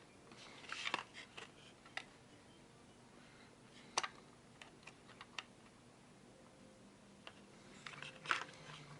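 Scattered small clicks and taps from handling the plastic parts of an opened electronic blood pressure monitor: a cluster about a second in, a sharp click around four seconds with a few light ticks after, and another cluster near the end.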